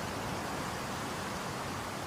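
Steady, even rushing noise with no tone or rhythm in it.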